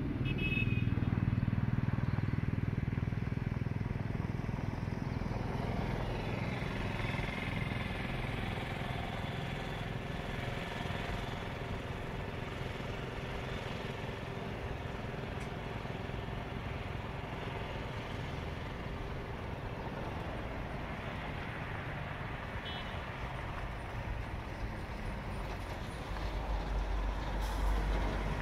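Highway traffic passing: the mixed engine and tyre noise of cars, motorcycles and trucks as a steady hum. The hum is loudest in the first few seconds, and a low rumble rises near the end.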